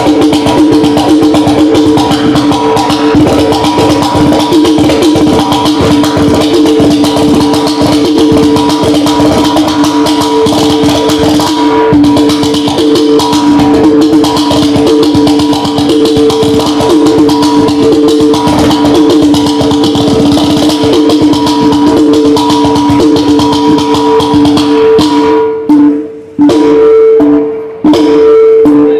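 Mizhavu, the large copper pot drum of Kerala temple theatre, played fast and continuously with the bare hands, over a steady droning tone. The sound drops out briefly twice near the end.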